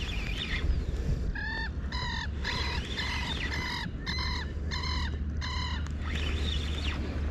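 A bird calling repeatedly: a run of about nine short, pitched calls, about two a second, in the middle of the stretch, with a few fainter calls before and after.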